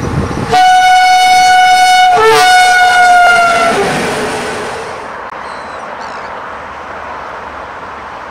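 Electric locomotive's horn sounding one long steady blast of about three seconds with a brief catch near the middle, dipping slightly in pitch as it fades. It gives way to a quieter steady rumble of the train.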